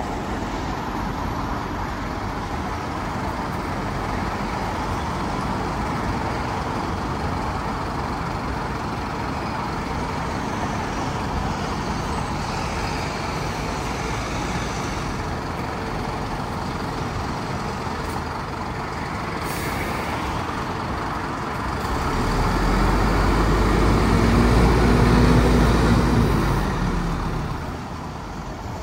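Scania P320 fire engine's five-cylinder diesel running as the truck pulls away, with a short air-brake hiss about two-thirds of the way through. The engine grows louder for several seconds near the end.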